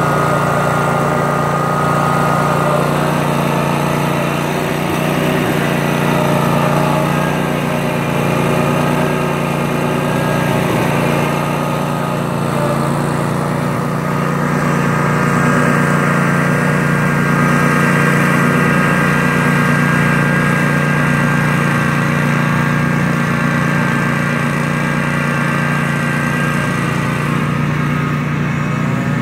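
Cub Cadet zero-turn riding mower's engine running steadily at a constant pitch.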